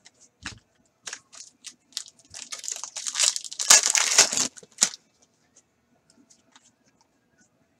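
A hockey card pack's shiny wrapper being torn open by hand: a few short crinkles, then a dense crackling tear, loudest around three to four seconds in.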